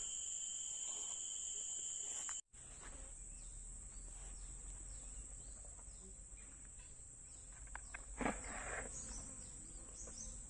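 Steady, high-pitched insect chorus, a constant outdoor drone of insects. It cuts out for an instant about two and a half seconds in and comes back, and a short louder knock sounds a little after eight seconds.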